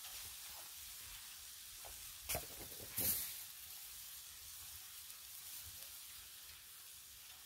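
Ground tri-tip burger patties sizzling on a Blackstone flat-top griddle: a steady, faint frying hiss, with two brief louder spits about two and three seconds in.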